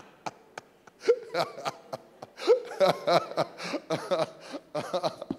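A man's voice in short, animated exclamations that the recogniser could not turn into words, starting about a second in after a near-quiet pause, with sharp clicks between the phrases.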